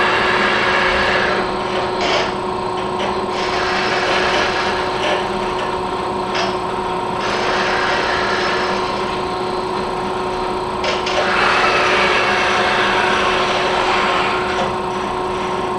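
Baxter robot's arm joint motors and gearboxes running as the arm swings through a move, a loud grinding noise over a steady hum that eases off briefly a few times as the motion changes.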